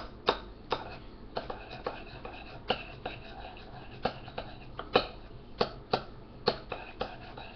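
A kitchen utensil tapping and scraping against a dish while butter is worked into the macaroni: a string of irregular sharp clicks, roughly two a second.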